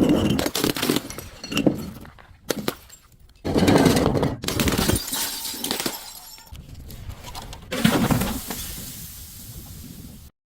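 Brittle objects being crushed and breaking, crunching and crackling in several bursts: a loud one at the start, another about three and a half seconds in and another about eight seconds in, with fainter crackling between. It cuts off suddenly near the end.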